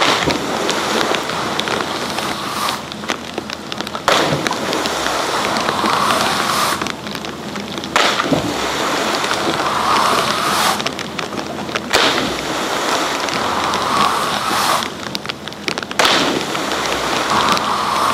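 Rushing, churning water in a ski water-jump landing pool, with a skier splashing into it at the start. Fresh surges of splashing start suddenly about every four seconds.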